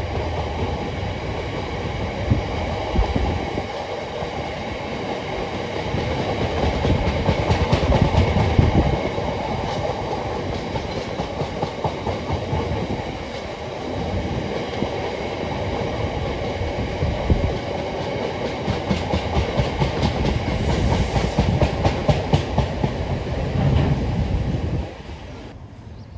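A long freight train of empty open box wagons rolling past, its wheels clicking and rumbling over the track. The sound drops away suddenly as the last wagon clears, near the end.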